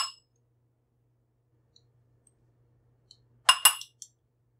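A metal measuring spoon clinking against a glass mixing bowl: bright, briefly ringing clinks. There are a couple right at the start and a quick group of three or four about three and a half seconds in, as salt is tipped into the flour.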